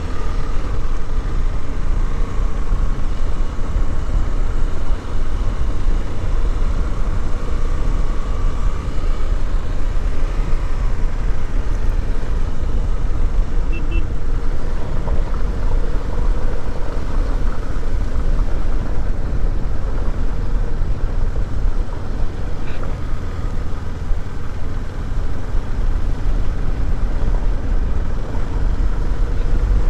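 Motorcycle engine running steadily while riding, under a heavy, constant low rumble.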